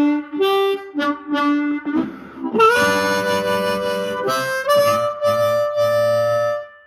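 C harmonica amplified through a Hohner Harp Blaster microphone and a Roland Cube Street amp with the reverb halfway up: short repeated single notes for about two seconds, then held chords that shift twice and stop just before the end.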